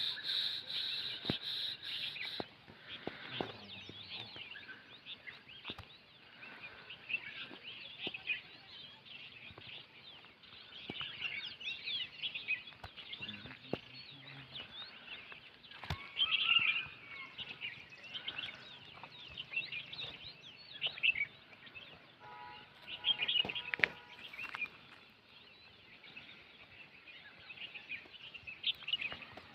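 Small birds chirping and twittering, many short high chirps overlapping, with louder flurries around the middle and again near the end.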